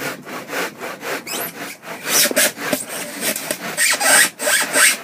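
Wooden board squeaking and scraping as it is rubbed back and forth against wood, a run of repeated rasping strokes with short squeaks that grow louder about halfway through.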